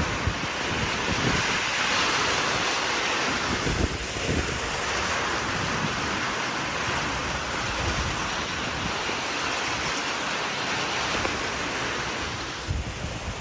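Severe thunderstorm wind gusting hard with rain: a loud, steady rushing hiss, with low buffeting of the wind on the microphone.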